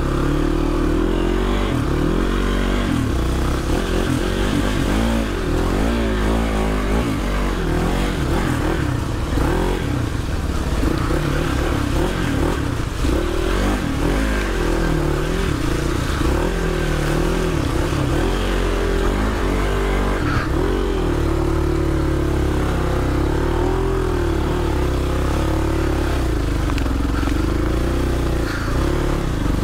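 Trail motorcycle engine running under way, its pitch rising and falling again and again as the throttle is opened and closed.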